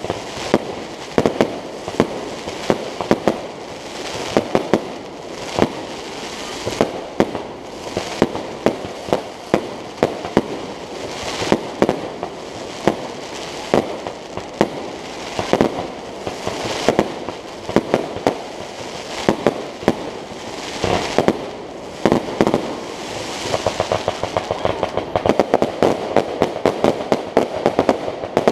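Aerial fireworks bursting: a steady series of sharp bangs, about one or two a second, over a noisy background. Near the end the bangs come thick and fast in a rapid salvo.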